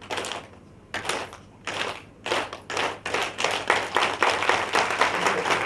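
A seated audience clapping in unison: at first single claps well apart, then quickening into fast, steady rhythmic clapping.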